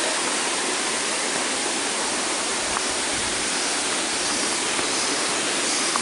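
Waterfall pouring over rocks into a pool, a steady, unbroken rush of water.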